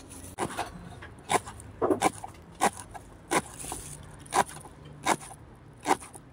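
Chef's knife slicing lemongrass stalks into thin rings on a wooden chopping board, each cut ending in a sharp knock of the blade on the wood, about ten cuts at an unhurried, uneven pace.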